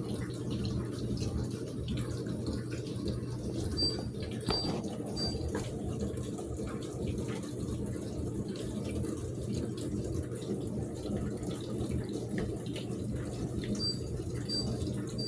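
Dishwasher running a wash cycle: water spraying and sloshing inside the tub over a steady motor hum. Twice, about 4 seconds in and again near the end, there are three short high electronic beeps.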